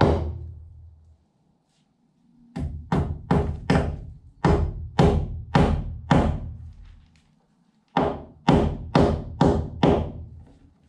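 Background music with a steady drum beat, about two beats a second, over a low bass, breaking off twice for a second or so.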